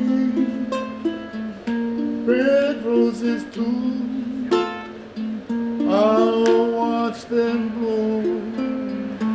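A man singing a song while strumming a ukulele.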